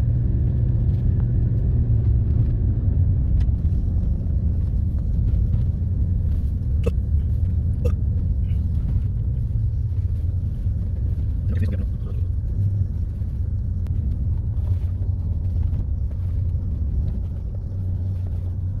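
Car driving on a gravel dirt road, heard from inside the cabin: steady low engine and tyre rumble, with a few brief clicks.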